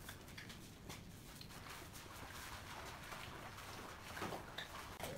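Low background hiss with a few faint light taps of small wooden inlay strips being pressed into place by hand.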